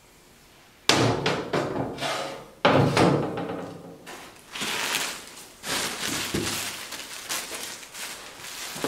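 A heavy lift-kit spindle set down on a metal-topped workbench: two loud knocks with a short ring, about a second in and again near three seconds. Then irregular rustling and light clatter as plastic packing in a cardboard box is rummaged through.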